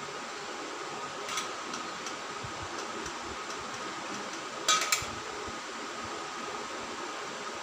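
Plastic stick-lids snapping into a popsicle mould as they are pressed into place: a faint click about a second in, then a sharper double click about halfway through, over a steady background hum.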